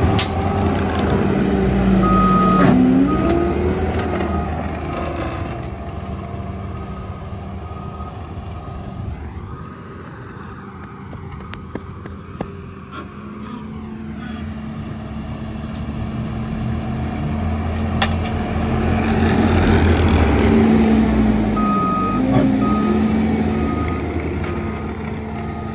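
Skid-steer loader's diesel engine running under load while its Coneteks 2.13M forestry rotor head levels and settles the ground. The engine note dips briefly about two seconds in and again near the end, each time with its reversing alarm beeping in a short run. It is quieter in the middle.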